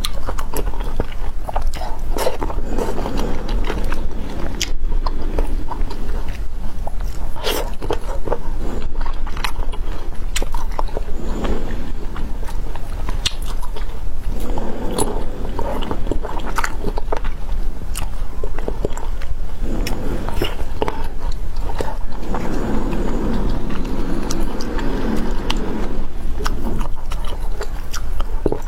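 Shine Muscat grapes being bitten and chewed: repeated sharp bites amid chewing.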